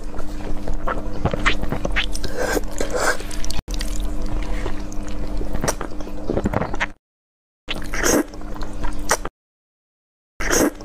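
Close-miked mukbang eating sounds: a person slurping instant noodles and biting and chewing sago grubs, with wet smacks and squishy clicks over a steady low hum. The sound drops out twice for a moment in the second half.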